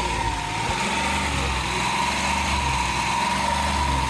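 Dodge 3.3-litre V6 idling with a misfire on cylinders 3 and 6, caused by a burned-out ignition coil. A steady high whine runs over the engine sound.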